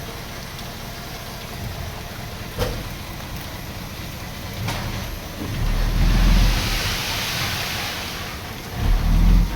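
Diesel engines of heavy earthmoving machinery running steadily, swelling twice in the second half to a louder low rumble, with a rushing hiss in between.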